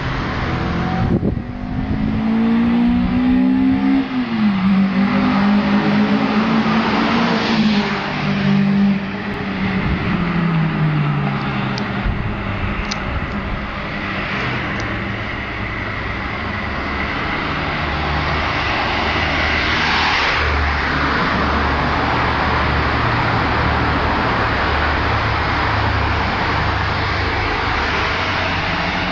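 Renault Clio Sport with an aftermarket Magnex mid and rear exhaust accelerating in a tunnel: the engine note climbs for the first few seconds, drops sharply about four seconds in, then falls away as the revs come down, echoing off the tunnel walls. It is followed by a steady rumble of the car running on.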